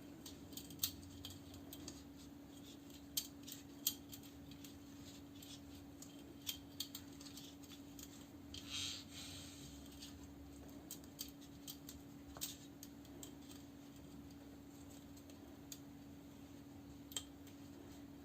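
Scattered light clicks and taps of small hard parts being handled as carbon brushes are fitted into a washing machine motor, with a short soft rustle about nine seconds in. A faint steady hum runs underneath.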